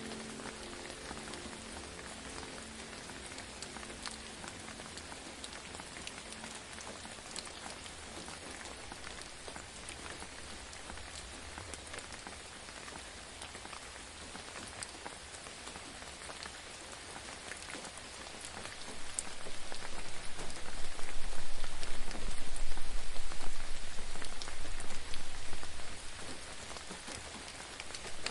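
Steady hiss of a waterfall, with fine spattering drops. About two-thirds of the way through, a low rumble swells for several seconds, then dies away.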